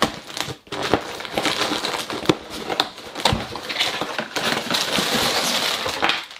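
Cardboard LEGO set box being opened by hand: a few sharp snaps and cracks as the flaps and tabs give, among continuous rustling and tearing of cardboard.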